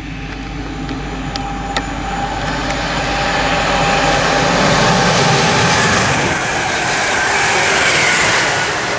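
A London Midland Class 350 Desiro electric multiple unit running into the station and along the platform: its wheels rumble on the rails and its motors hum, growing louder as it draws close and staying loud as the cab passes.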